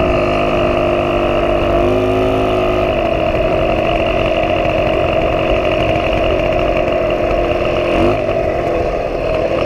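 A 1977 Puch Pinto moped's small two-stroke engine running under way, its pitch shifting a couple of times and rising briefly about eight seconds in, over a steady rush of riding noise.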